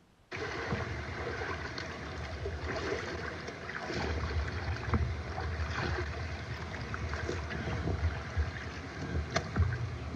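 Shallow stream water sloshing and splashing as someone wades through it pushing a bamboo-poled hand net, with many small irregular knocks and a low rumble that swells midway and near the end.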